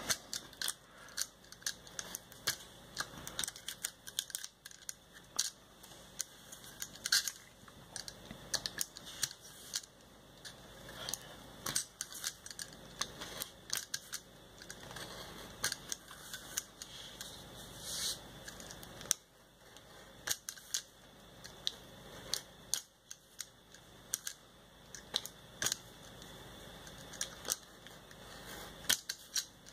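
Snap-off craft knife blade cutting through paper: a steady run of short, irregular scratchy ticks and clicks as the blade works along the contours.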